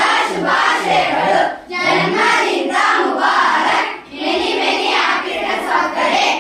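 A group of schoolchildren singing a birthday song together in unison, in phrases of about two seconds with short breaks between them, stopping abruptly at the end.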